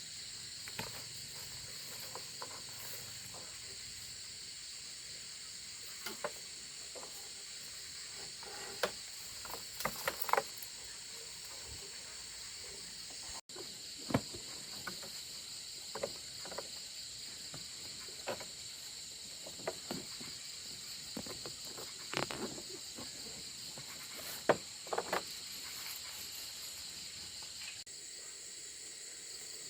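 Steady high-pitched chorus of crickets or cicadas, with scattered light clicks and taps over it.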